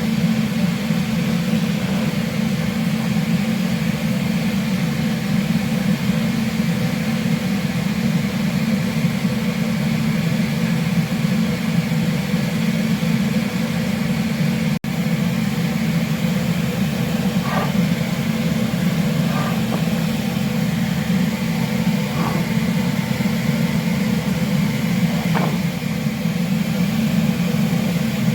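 Steady low hum of a ship's machinery and ventilation, unchanging throughout, with a few faint light knocks in the second half and a momentary dropout about halfway through.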